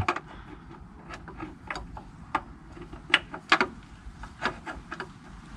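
Hand tools working under a car: irregular sharp clicks and light metallic taps, about two a second.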